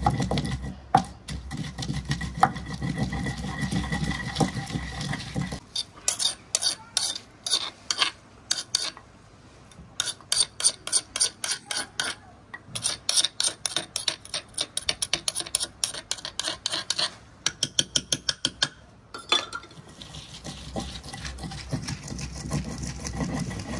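Wooden pestle worked round a dauri (mortar), grinding almond paste with water for badam ragda, knocking against the bowl in quick regular clicks about four a second from about six seconds in until about nineteen seconds. A low steady rumble is heard before and after the clicking.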